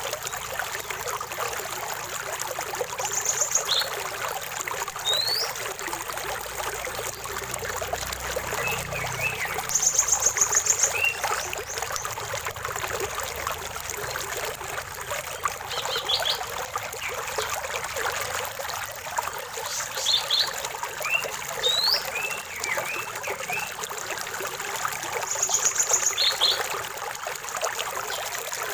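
Stream water trickling steadily, with birds calling over it: short rapid high trills, the longest and loudest about ten seconds in, and quick rising whistles scattered through.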